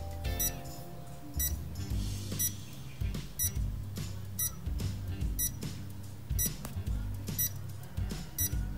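Countdown timer sound effect ticking about once a second, nine ticks in all, over quiet background music with a low bass line.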